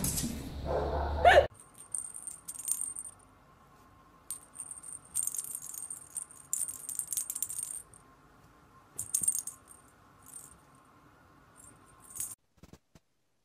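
A loud noise cuts off about a second and a half in. Then a cat's small perforated plastic toy ball rattles and jingles in short, irregular bursts as the cat paws it around, with quiet gaps between.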